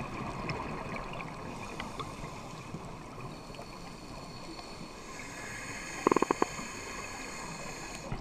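Steady water sound, with a quick run of five or six sharp knocks about six seconds in.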